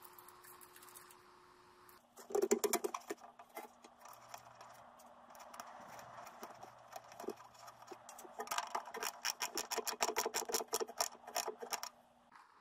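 Small hand tools clicking and rattling against the ammeter's terminal studs as crimped wire terminals are fitted and the nuts tightened, with a quick run of rapid clicks in the last few seconds.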